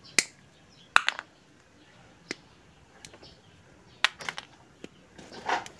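Irregular sharp clicks and small snaps from pliers and wire connectors being handled while spliced motor wires are worked on, about eight in all.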